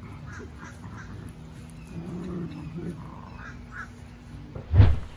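Two Cavalier King Charles Spaniel puppies tussling over a toy in a game of tug, making short scattered animal noises. A loud, sudden thump comes near the end.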